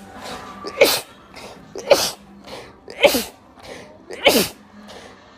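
A person sneezing four times in quick succession, about once a second, each sneeze a sharp burst with a voice that drops in pitch.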